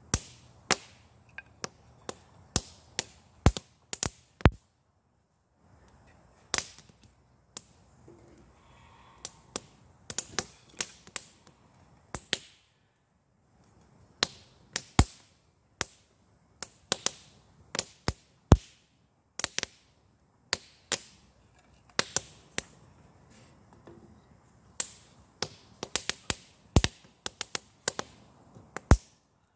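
Dry split wooden kindling sticks clacking and snapping as they are stacked onto a small fire: a long, irregular series of sharp wooden cracks, with brief pauses twice.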